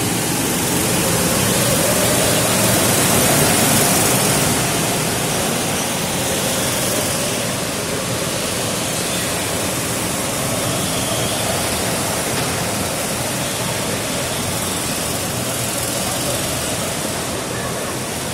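A pack of go-kart engines running together, a dense, reverberant din in an underground car park. It swells to its loudest a few seconds in as the karts pull away from the start, then settles to a steady drone as they circle the track.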